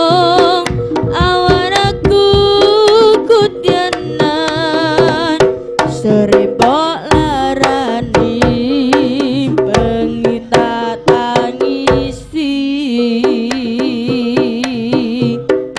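Jaranan band playing a melodic passage with no sung words: sharp kendang hand-drum strokes under a wavering melodic lead line.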